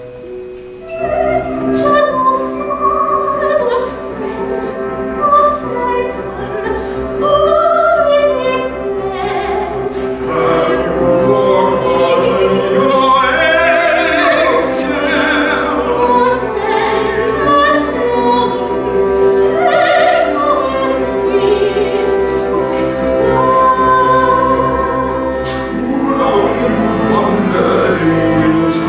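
Operatic singing with strong vibrato over a full theatre pit orchestra, recorded from the audience. The orchestra swells about a second in.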